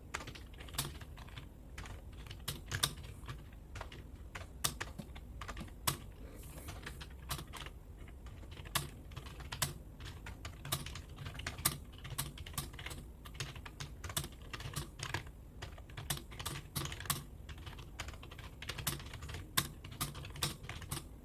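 Fingers typing on a computer keyboard: irregular key clicks, several a second, kept up at a typing-test pace of about 36 words per minute.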